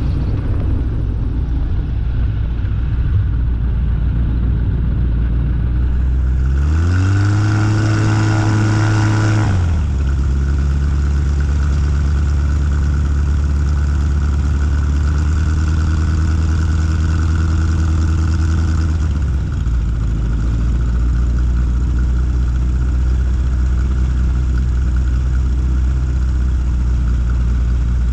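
Zenair 701 STOL ultralight's Rotax engine and propeller running. The revs rise sharply about six seconds in and hold high for about three seconds. They then drop back to a middle setting, and near twenty seconds fall again to a low, steady idle.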